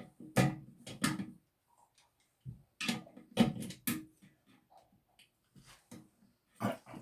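Clicks and knocks from handling a new plastic toilet fill valve and its parts in the tank, in uneven bunches with short pauses.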